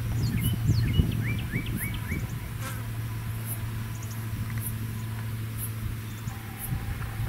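Outdoor grassland ambience: insects chirping faintly at high pitch, about two chirps a second, over a steady low rumble, with a quick series of short rising bird chirps in the first two seconds.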